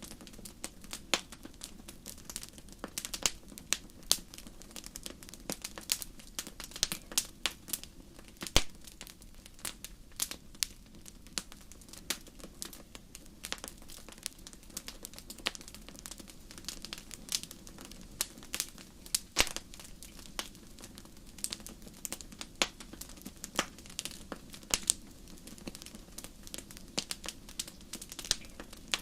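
Wood fire burning in a fireplace: irregular crackles and sharp pops over a low, steady hiss of the flames.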